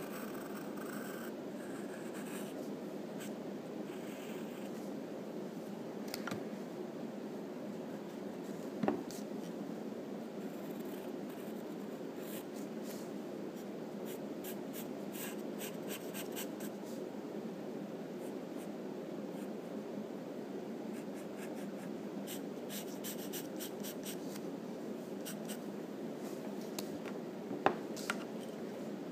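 Graphite pencil scratching on paper in runs of quick short sketching strokes over a steady low hum. Two sharp taps stand out, one about nine seconds in and a louder one near the end.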